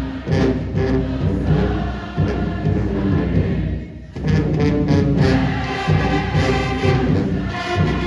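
A marching-style pep band with brass, tubas, saxophones and drums playing a loud, rhythmic stands tune, with a short break about halfway through before the full band comes back in.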